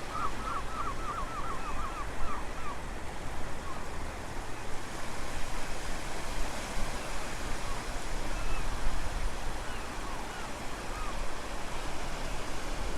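Steady outdoor rushing noise with a low rumble, with a small bird's rapid trill in the first second or so, then a few scattered chirps.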